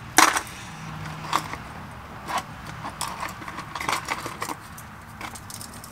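Hard plastic fishing lures clicking and clattering against each other as a hand sorts through a box of them: a sharp clack just after the start, then lighter irregular knocks about once a second.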